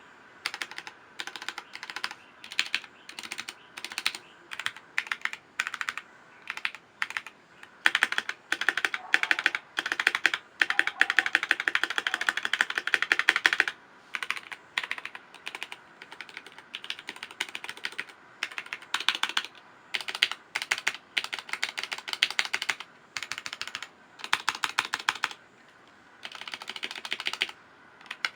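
Typing on a Blitzwolf BW-KB1 mechanical keyboard fitted with Gateron brown switches: bursts of rapid key clicks broken by short pauses. There is one long unbroken run of fast typing from about eight to fourteen seconds in.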